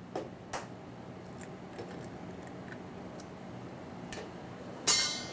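A few faint clicks and taps, then near the end a sharp crack as a hen's egg is struck on the rim of a small stainless-steel cup to break it open, over a low steady hum.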